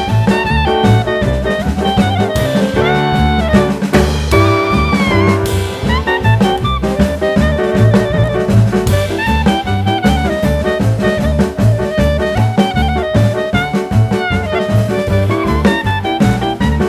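Background music: a horn-led melody over bass and drums with a steady beat.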